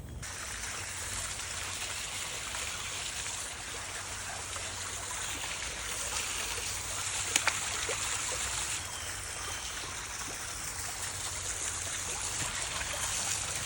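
Water trickling and running steadily, with a couple of brief faint clicks about seven and a half seconds in.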